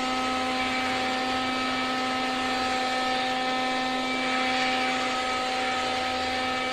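Small electric fan motor running steadily: an even whoosh of air over a constant humming tone.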